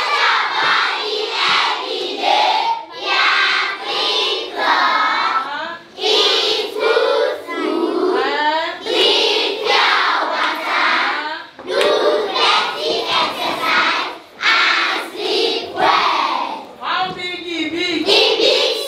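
A roomful of schoolchildren singing together loudly in short phrases, with hand clapping.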